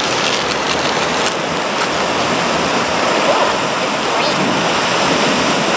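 Steady wash of ocean surf breaking on the beach, an even rushing noise with no breaks.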